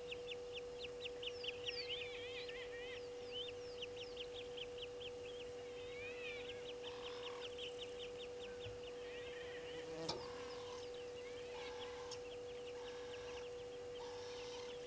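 Birds chirping: rapid series of high, falling chirps, several a second, mixed with some rising-and-falling calls, thinning out after about nine seconds. A steady low hum sits underneath, and a single sharp click comes about ten seconds in.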